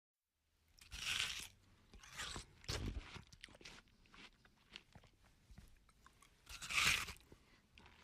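A person eating melon greedily: crunching bites into the fruit and chewing, with the loudest bites about a second in and shortly before the end, and smaller chewing clicks between.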